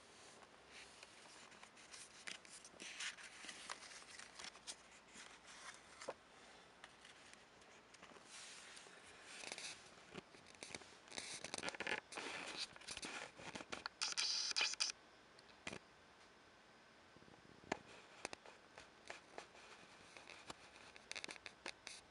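Paper envelope being opened and a photo pulled out and handled: irregular rustling, scraping and small clicks of paper, with one brief louder rustle about two-thirds of the way through.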